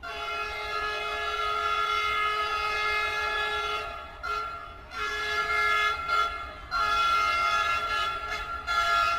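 Train horn sounding in long held blasts, with short breaks between them, over a low rumble.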